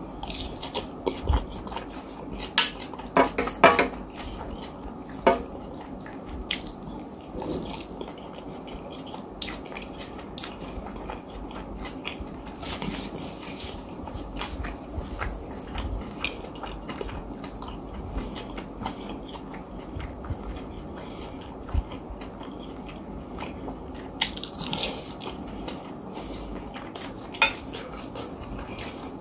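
A man chewing and biting mouthfuls of oil rice and salad vegetables close to the microphone, with sharp clicks of the spoon and fork on the plate now and then.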